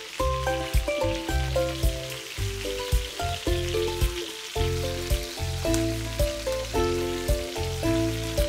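Chicken pieces sizzling in hot oil in a non-stick frying pan on high heat, under background music with a bass line.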